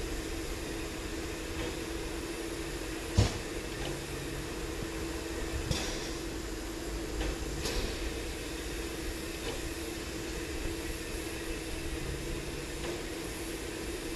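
Harzer Schmalspurbahn steam locomotive 99 7237-3, a narrow-gauge 2-10-2 tank engine, standing with steam up: a steady hum, a few short hisses, and one sharp click about three seconds in.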